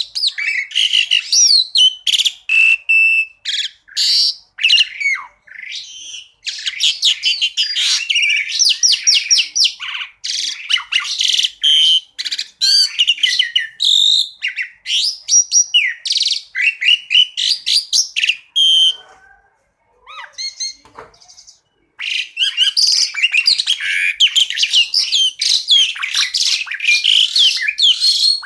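Asian pied starling (jalak suren) singing a fast, varied song of chirps, whistles and rapid trills in a nearly unbroken stream, with a brief quieter lull about twenty seconds in.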